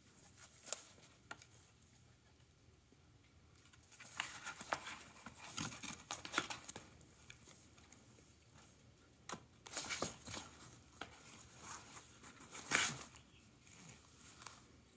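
A cat scrabbling in a cardboard pizza box: its paws and claws scratch and rustle the cardboard in several short bouts as it kicks and bats at a feather toy. The loudest scrape comes near the end.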